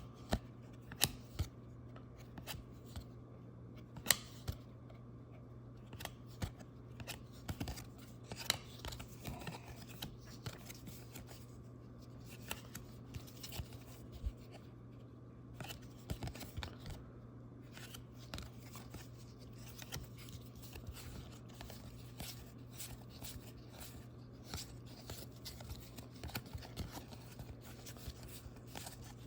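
Baseball trading cards being handled and flipped through by hand: irregular small clicks and short rustles of card stock, over a steady low hum.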